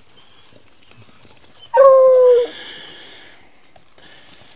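A hunting hound gives one loud, drawn-out bawl, slightly falling and lasting under a second, about two seconds in. It is baying at game it has run into a hole among the rocks.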